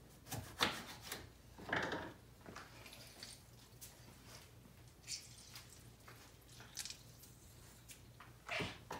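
Lemon squeezed by hand, giving a few short, separate squishing sounds.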